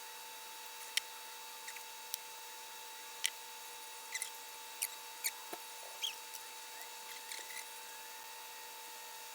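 Small metal engine parts clicking and tapping as they are worked into place by hand during a trimmer engine rebuild: about a dozen sharp, irregular clicks over a steady electrical hum.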